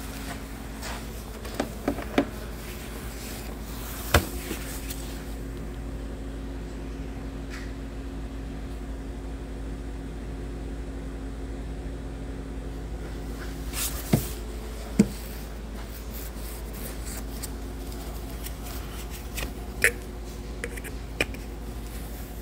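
Scattered clicks and knocks of a cordless tool and metal fasteners against the engine's intake manifold, over a steady low hum.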